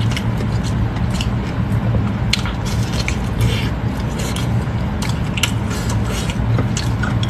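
Close-miked wet chewing and mouth smacks of a person eating soft, sauce-coated intestine: irregular squishy clicks and smacks over a steady low hum.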